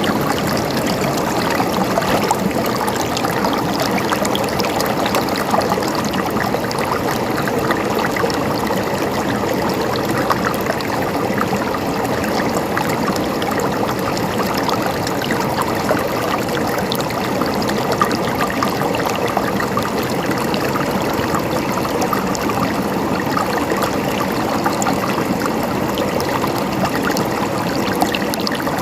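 River water flowing steadily over stones, a continuous rushing with trickling and splashing detail.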